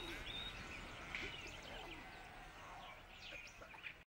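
Faint birds chirping, short quick calls over a steady background hiss and low hum, that cut off abruptly at the very end.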